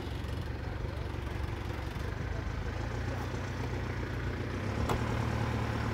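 Pickup truck engine idling steadily with a low, even hum that rises slightly near the end, and a single sharp click about five seconds in.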